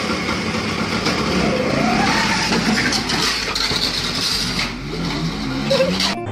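Old motor scooter's engine running and revving hard as the scooter lurches off and the rider loses control of it.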